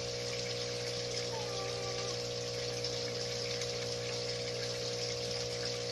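Small electric pump running steadily with an even hum, over a constant wash of moving water.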